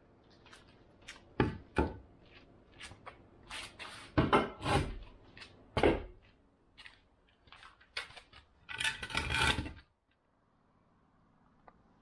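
Irregular knocks, clacks and short scrapes of hard objects being handled and set down, ending with a longer scraping rub about nine seconds in.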